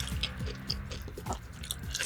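Close-miked chewing of raw yellowtail sashimi: soft, wet mouth clicks and smacks scattered irregularly.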